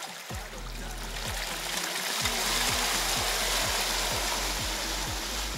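Hip-hop music with deep bass hits that slide down in pitch. Under it, river water rushes and splashes around the wading bike, louder from about two seconds in.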